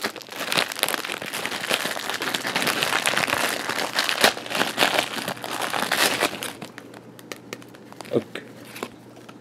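Clear plastic packaging bag crinkling and rustling as it is handled and opened, dense and continuous until about two-thirds of the way through, then only a few faint rustles.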